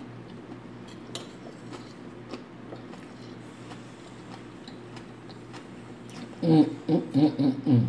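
Soft chewing and faint small clicks of fingers picking through rice and shrimp on a plate, over a steady low hum. About six and a half seconds in, a woman's voice sounds for about a second and a half while she chews.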